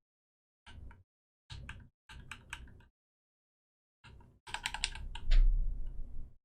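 Computer keyboard being typed on in short bursts of keystrokes, with a denser, louder run of clicks near the end over a brief low rumble.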